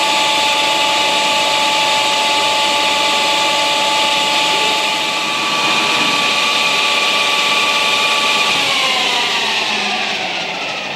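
Electric motor of a workshop machine running with a steady whine, then switched off about eight and a half seconds in and winding down, its pitch falling as it slows.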